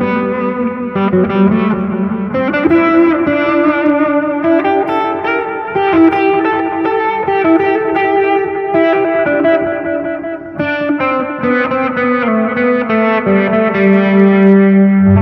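Electric guitar, a Squier Jazzmaster, played through a board of effects pedals into a Fender Tonemaster Deluxe Reverb amp: sustained, ringing chords and notes that change every few seconds.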